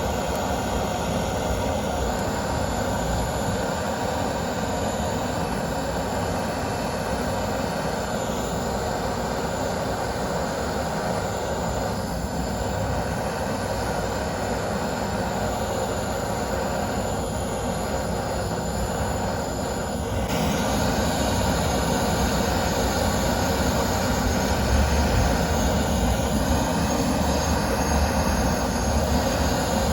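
Steady rushing roar of fire burning nuts, growing a little louder about twenty seconds in.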